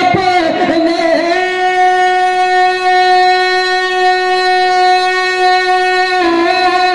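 A man singing a naat solo into a microphone with no accompaniment: a short wavering run of ornaments, then one long high note held steady for about five seconds, broken off near the end.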